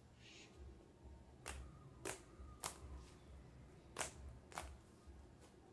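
Homemade slime pressed and folded by hand for the 'click' test, giving about five faint, sharp clicks at uneven intervals as trapped air pops.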